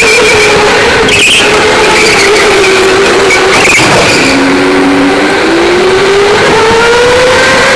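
Electric go-kart motor whining, its pitch dropping as the kart slows into a corner and rising again as it accelerates out, over loud, steady wind and track noise. Two short knocks come about one and four seconds in.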